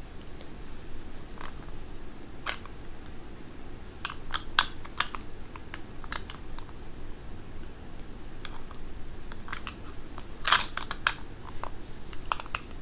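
Scattered light clicks and taps in a quiet small room, bunched into a few short clusters: one about four to five seconds in, the loudest about ten and a half seconds in, and a few more near the end.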